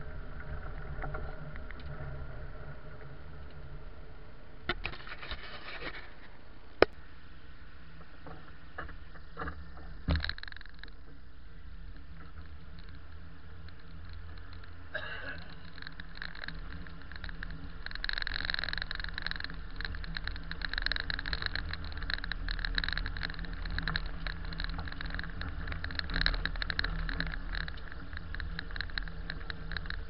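Vehicle driving over snow-packed streets, heard from inside the cab: a steady low engine and road rumble, with a crackly tyre-on-snow noise that grows louder from about halfway through. A sharp knock about seven seconds in and a smaller one about ten seconds in.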